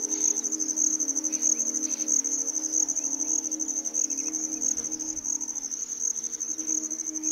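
Insects trilling steadily, a high, rapidly pulsing chirr, with a low steady hum underneath.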